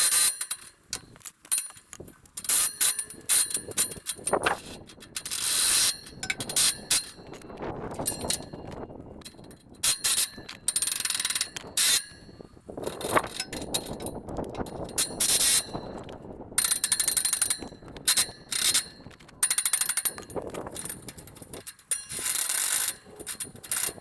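Ratchet wrench clicking in repeated short bursts, one burst per back-stroke, as the scraper bolts on a 10-foot International Harvester disk harrow are turned to adjust the scrapers.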